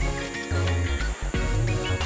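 Background music with a repeating bass line and a melody over it.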